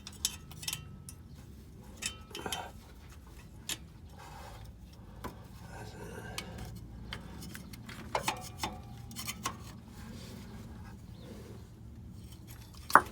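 Scattered light clicks and metallic taps of hands and tools working on spark plug wires in an engine bay, with one sharper click near the end as a plug wire boot comes free.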